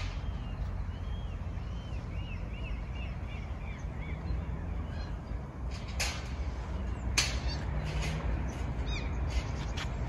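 Birds calling: a quick run of short rising-and-falling chirps, then two harsh crow caws about six and seven seconds in, over a low steady rumble.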